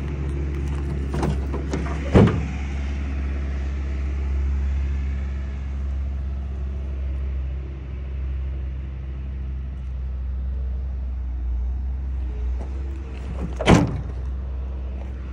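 Ford F-250 diesel engine idling with a steady low rumble. Two sharp knocks stand out above it, one about two seconds in and one near the end.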